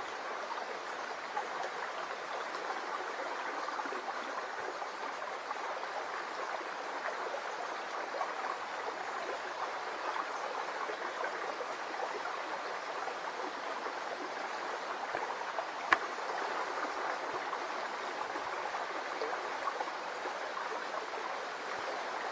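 Shallow brook babbling over and around stones: a steady, close rush of flowing water, with one sharp click about two-thirds of the way through.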